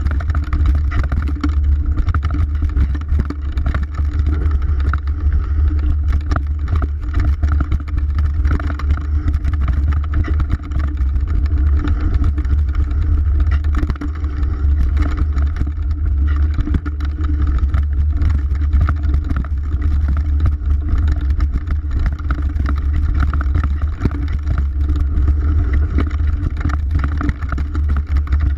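Wind buffeting an action camera's microphone as a mountain bike descends a rough dirt trail at speed, with a steady low rumble and a continual clatter of knocks and rattles from the bike over the bumpy ground.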